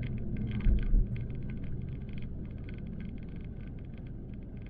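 Cab noise of a pickup truck being driven: a steady low rumble of engine and tyres, with a brief louder low thump about a second in and rapid faint ticking over it.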